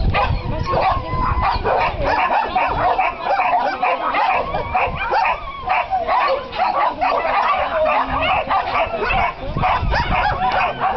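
Dogs barking and yipping in a rapid, unbroken string of high yaps.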